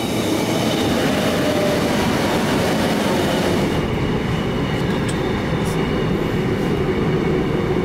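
Suin–Bundang Line electric commuter train running at close range, a loud, steady rush of wheels and motors. About four seconds in it gives way to the duller running noise heard from inside a carriage as the train moves past an underground platform wall.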